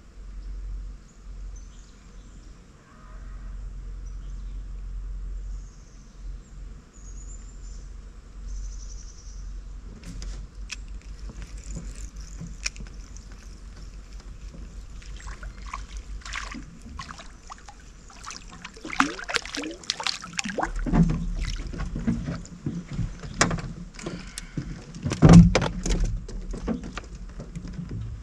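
A crappie being reeled in and landed in a small fishing boat: a run of clicks, knocks and rattles that grows busier over the second half, with a loud thump a few seconds before the end.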